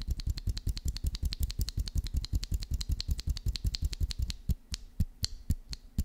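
Typing on a Keychron Q2 mechanical keyboard with pre-installed Gateron G Pro brown switches: a fast, even run of key clacks, about nine a second, thinning to a few scattered keystrokes over the last second and a half.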